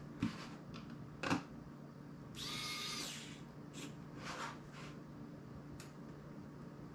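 Sharp clicks of a tool and small phone parts handled on a tabletop, the loudest about a second in. Then, about two and a half seconds in, an electric precision screwdriver whirs for under a second as it drives a screw into the phone's frame, followed by light scrapes and taps.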